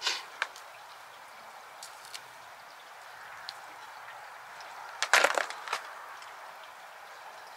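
Log fire crackling: scattered sharp pops, with a quick flurry of loud snaps about five seconds in.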